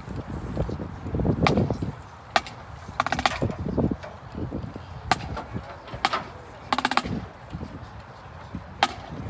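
Marching drumline percussion: sharp single clicks and short rattling rolls spaced a second or two apart, over a low background murmur.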